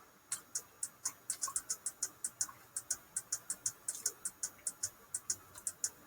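Computer keyboard being typed on: a run of light, quick clicks at an uneven pace, about four a second, stopping shortly before the end.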